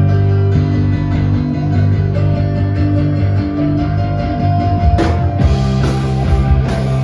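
Live punk rock band playing the opening of a song, with electric guitar and bass holding chords. The drum kit comes in with cymbal crashes about five seconds in.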